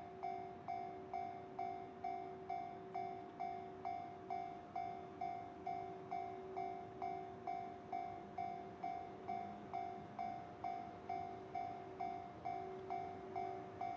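Electronic railway level-crossing bell ringing steadily, a sharp ding about twice a second, each strike fading before the next: the warning for an approaching train.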